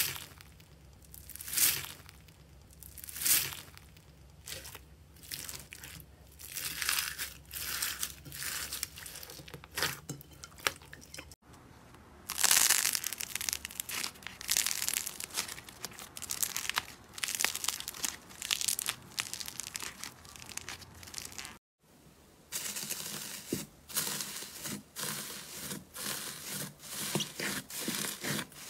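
Hands pressing and kneading slime, making crunchy, crinkly squelching noises. First foam-bead slime is pushed in repeated swishes about every second and a half. After a sudden break, a clay-like slime ball is squeezed with denser crackling, and after another break soft slime is kneaded with crinkly popping.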